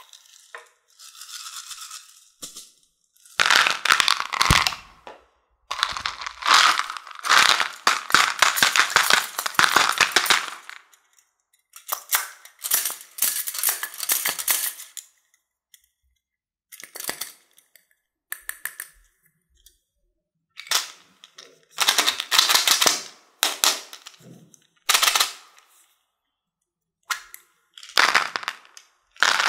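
Small hard-shelled candies poured and stirred by hand, clattering against each other and against plastic toy tubs. The clatter comes in bursts of dense clicks, some lasting several seconds, with quiet gaps between them.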